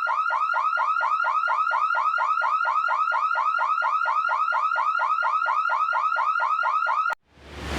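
Car alarm sounding a fast, repeating electronic warble, about five chirps a second. It cuts off suddenly near the end, and a rising hiss swells in just after.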